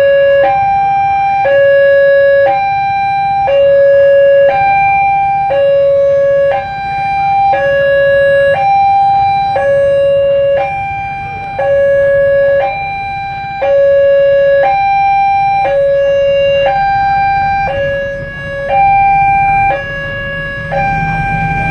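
Railway level-crossing warning siren sounding a loud two-tone alarm, alternating steadily between a lower and a higher note about once a second, the signal that a train is approaching and the crossing is closing.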